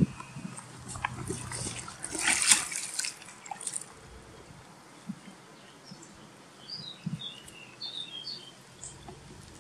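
Large mirror carp splashing in shallow lake water as it is released from a floating retention sling. There is a loud splash about two seconds in, then smaller splashes and drips.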